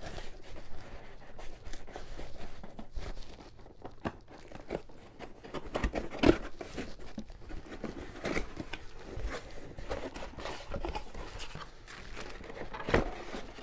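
Cardboard rifle box being unsealed and opened by hand: packing tape peeled and torn, with packaging crinkling and rustling. A few sharper knocks come about six seconds in and near the end.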